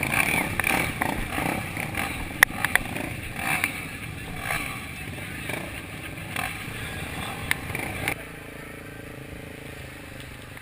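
Dirt-bike engines running, mixed with voices and scattered knocks; about eight seconds in it settles to a quieter steady hum.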